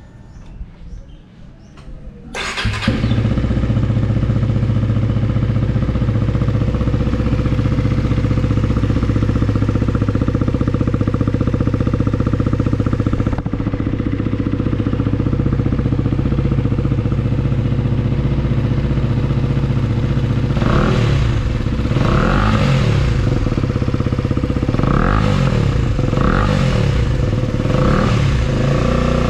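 KTM Duke 250 single-cylinder engine breathing through an SC Project slip-on exhaust. It starts about two seconds in and settles into a steady idle. Near the end the throttle is blipped several times, each rev rising and dropping back to idle.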